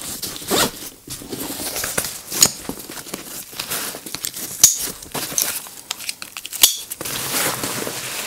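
Nylon backpack fabric and its rain cover being handled, rustling and crinkling with scattered short clicks.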